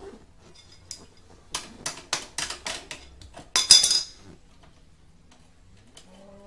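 Metal clinking from a hand tool worked against a motorcycle's rear wheel hub: a run of about seven quick clinks, then a louder clatter about four seconds in.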